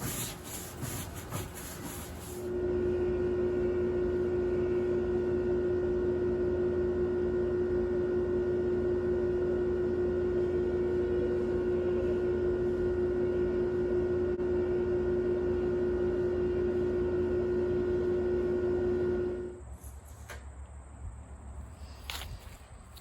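A couple of seconds of scraping and rubbing, then an electric power tool's motor starts abruptly and runs at a steady pitch for about seventeen seconds before cutting off.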